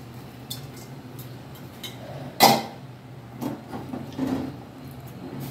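Kitchen handling sounds at a clay cooking pot of tamarind water: faint clicks, one sharp knock about two and a half seconds in, then a few softer knocks and handling noises, over a low steady hum.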